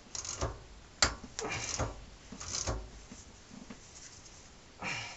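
Metal clicks and scraping of a wrench turning the drive screw of a two-arm gear puller, drawing the inner primary bearing race off a Harley-Davidson Dyna's main shaft. A sharp click about a second in, then several short scraping rasps.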